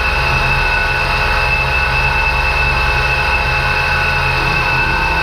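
Heavy woodworking machine running steadily, a low rumble of motor and cutterhead under a steady high whine.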